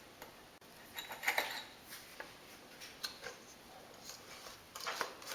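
Faint, scattered clinks and scrapes of kitchen utensils against bakeware, with a few louder clicks about a second in and near the end.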